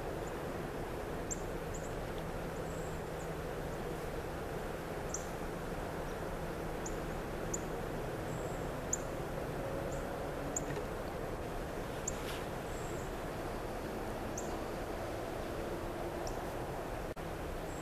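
Steady outdoor background noise with a faint low hum, broken by scattered single high, short chip notes from small birds, about a dozen in all.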